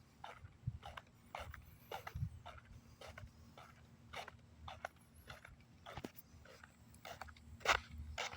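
Footsteps, about two a second and evenly spaced, each a short scuff with a low thud.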